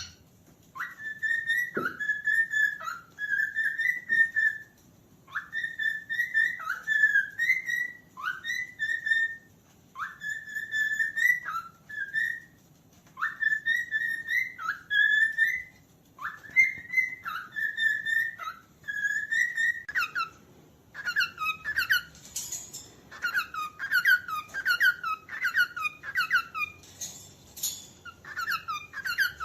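Cockatiel whistling its song: short whistled phrases repeated with brief pauses between them. About two-thirds of the way through it switches to a faster run of quick chirping notes.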